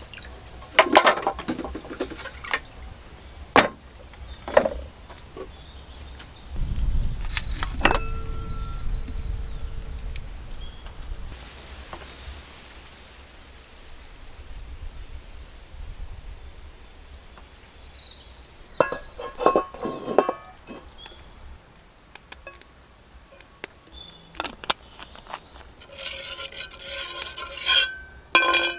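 Mud clams knocking and clinking against a wet steel bowl in the first few seconds, then birds chirping in quick trilled bursts, in two spells several seconds apart. A low rumble comes in under the first bird spell, and a few more clinks follow near the end.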